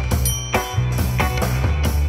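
Upbeat background music with a steady drum beat over a sustained low bass line.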